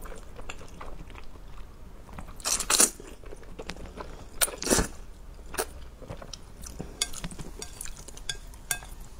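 Close-miked eating of saucy noodles: a person slurping strands in and chewing with wet mouth sounds. The loudest slurps come about two and a half and four and a half seconds in, with smaller smacks and clicks between.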